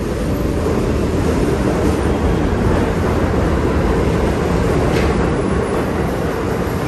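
R160 subway train running past along the platform: a steady low rumble of wheels on rails that grows louder over the first couple of seconds. A light click about five seconds in.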